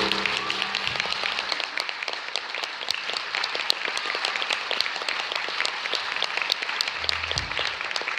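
Audience applauding with dense, steady clapping. The last note of the ensemble's accompaniment dies away in the first second.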